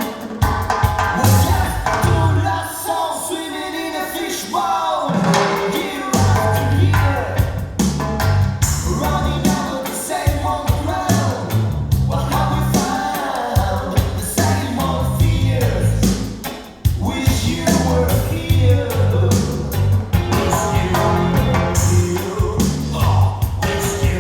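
A song with a lead vocal, a steady drum beat and deep bass, played through Børresen Acoustics loudspeakers driven by Gryphon Audio amplification. The music dips briefly about three seconds in and again near sixteen seconds.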